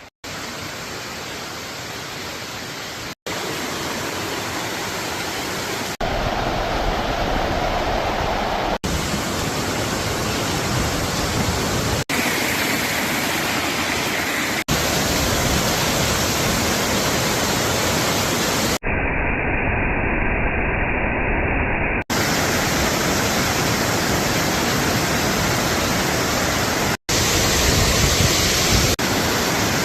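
Steady rush of falling water from a waterfall, heard over a string of short clips, its loudness stepping up or down at each cut.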